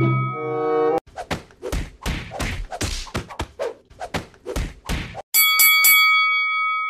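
A quick run of slapping thuds, several a second for about four seconds, like punches traded in a boxing match, then a boxing bell struck and left ringing near the end. A short low buzzing tone comes in the first second.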